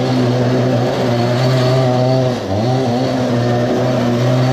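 Small engine of a homemade radio-controlled go-kart revving as the kart drives, with a servo working its throttle. It holds a steady high pitch, drops briefly about two and a half seconds in, picks up again, then eases off at the end.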